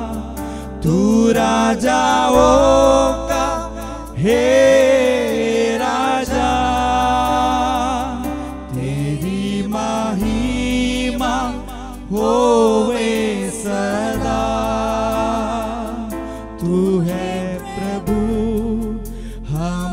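A man and a woman singing a slow Christian worship song together, their voices wavering in long held notes, over sustained keyboard chords that change every couple of seconds.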